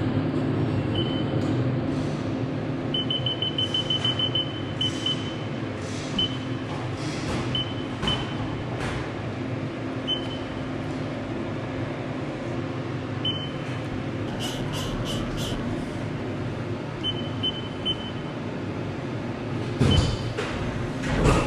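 CNC milling machine humming steadily while it is set up, with strings of short high electronic beeps and scattered clicks and knocks.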